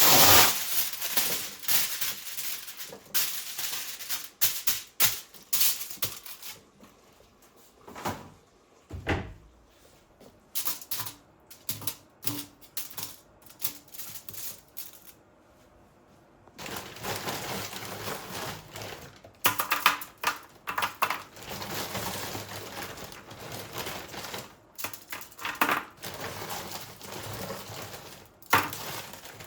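Irregular runs of quick clicks and knocks, with a short quiet pause about halfway through.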